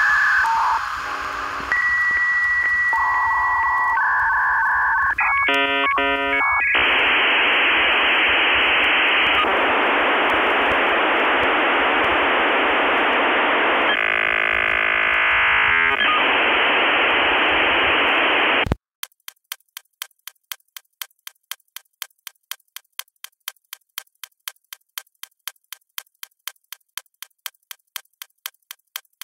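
A run of steady electronic beeps and tones, then a long hiss with a muffled, telephone-like sound, which cuts off suddenly and is followed by steady ticking at about two to three ticks a second.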